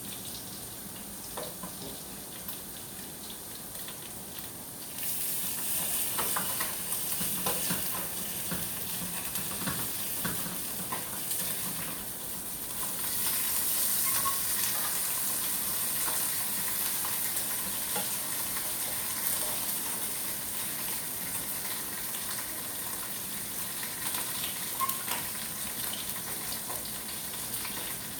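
Garlic, onion, carrots and capsicum sizzling in hot oil in a pan while being stirred, with scattered clicks of the utensil against the pan. The sizzle gets louder about five seconds in and again a little past the middle.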